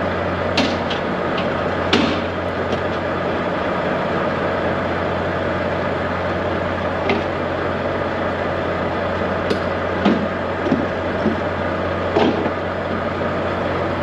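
Semi-truck diesel engine idling steadily, with a few short knocks and clanks scattered through, the loudest about 2 and 10 seconds in.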